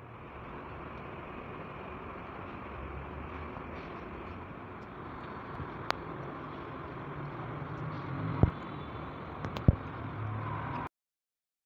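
Steady outdoor background noise with a few sharp knocks in the second half. It cuts off abruptly about a second before the end.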